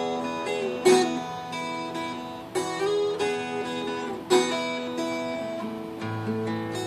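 Acoustic guitar playing a fingerpicked intro, with a stronger accented chord about every second and a half and a low bass note coming in near the end.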